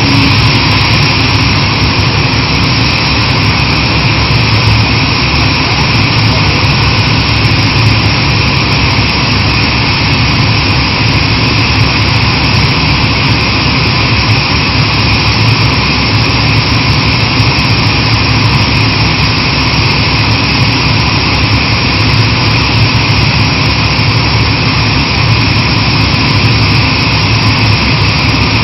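Kaishan KW20 water well drilling rig running steadily, its engine a loud, constant machine noise that does not change.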